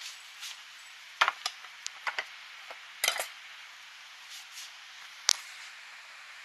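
Stainless steel pet food bowls clinking and clattering as they are handled and set down on the floor, a cluster of knocks in the first few seconds and one sharp clink about five seconds in, over a steady background hiss.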